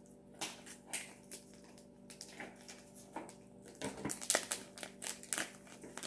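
Small plastic bag crinkling in quick irregular crackles as it is handled and its contents are shaken out, busiest about four seconds in.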